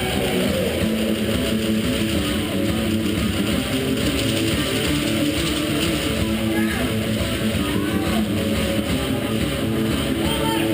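Rock music led by guitar, playing steadily.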